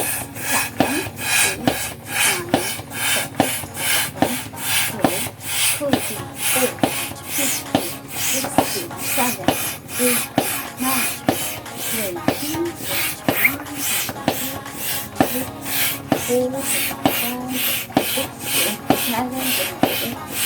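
Bestway Air Hammer manual hand pump worked steadily in and out, about two rasping strokes a second as air is pushed into a large balloon, with a short squeak at each stroke.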